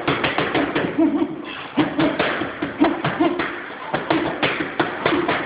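Boxing gloves smacking focus mitts in rapid flurries of punches, several sharp hits a second, mixed with short vocal grunts or exhales between punches.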